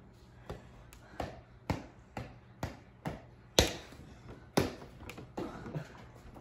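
A small rubber basketball dribbled on a carpeted floor: a string of short bounces about two a second, two of them louder a little past halfway.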